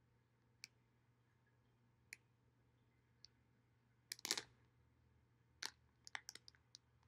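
Faint, sparse crackles of a plastic gummy-candy bag being eased open slowly: single crinkles a second or so apart, a short cluster about four seconds in, and a quick run of crinkles near the end.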